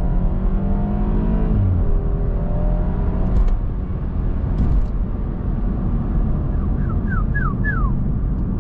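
BMW 125i's turbocharged four-cylinder with its standard exhaust accelerating hard in Sport Plus, the rear wheels spinning. The engine note rises, drops abruptly about two seconds in, then climbs again. Near the end come a few short falling squeaks.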